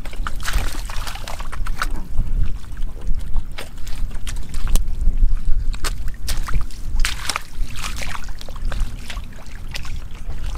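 Hands and rubber boots splashing and sloshing in shallow muddy water as stranded fish are grabbed, in many short, irregular splashes, over a steady low wind rumble on the microphone.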